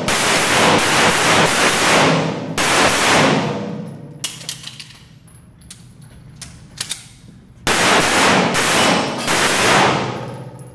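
Pistol shots fired in rapid strings in a concrete-walled indoor range, each shot echoing heavily. A string runs for about four seconds, then a pause of a few seconds with only faint clicks, then a second fast string of shots for about two seconds near the end.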